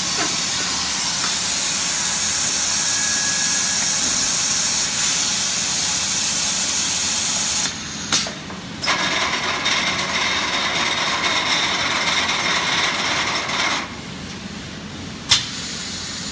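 Automatic colour-kitchen machinery for textile printing paste running: a loud steady hiss for about seven and a half seconds, a brief stop with a click, a second hissing run of about five seconds, then a quieter running noise broken by one sharp click near the end.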